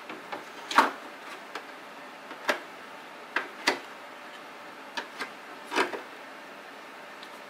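Irregular sharp clicks and taps of a 3D-printed plastic grill and a small screwdriver against the plastic body of an RC truck as the grill's bolts are driven in. About ten knocks at uneven intervals, the loudest about a second in.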